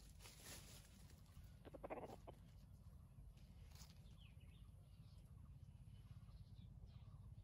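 Near silence with one brief call from a junglefowl rooster about two seconds in, and a few faint bird chirps about four seconds in.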